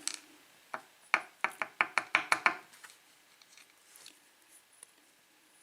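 Lock pins and springs from a gutted Dexter pin-tumbler lock tipped out onto a hard surface: about ten sharp clicks in quick succession over two seconds, then a few faint ticks.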